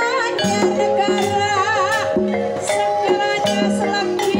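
Javanese Banyumasan gamelan playing an uyon-uyon piece: metal-keyed saron metallophones struck with wooden mallets and kendang drums, under a sinden (female singer) singing with a wavering vibrato.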